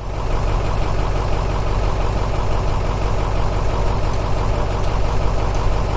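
City bus engine running steadily, starting abruptly as a sound effect, with a deep even engine hum.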